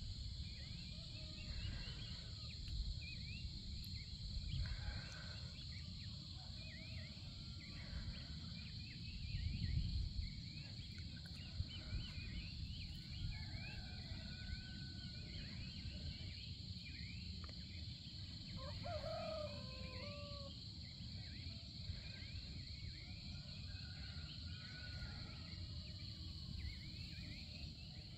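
Early-morning outdoor chorus: many small birds chirping in short, rapid calls over a steady high buzz of insects. A distant rooster crows once, about two-thirds of the way through, under a low rumble that swells around ten seconds in.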